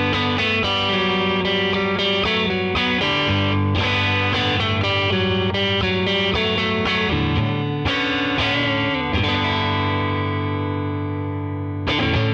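TreeTone Songbird TT045 electric guitar played through an amp: struck chords and single-note lines, then a chord left to ring and fade for about three seconds before a fresh strum near the end.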